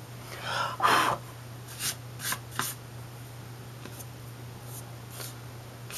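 An eraser and a hand rubbing on drawing paper: a louder scratchy rush about a second in, then short scattered strokes, over a steady low hum.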